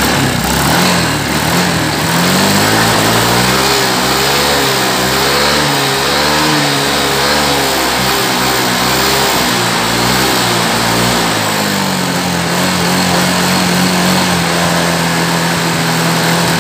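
Yamaha Mio M3 scooter's single-cylinder engine running, its speed rising and falling repeatedly and then settling to a steady speed about twelve seconds in. The valve train now runs smoothly after the worn rocker-arm roller was replaced, though the exhaust leaks at the header joint.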